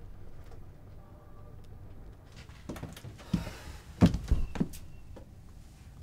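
A run of dull thumps and knocks in a small room, starting about halfway through, the loudest a little after four seconds in.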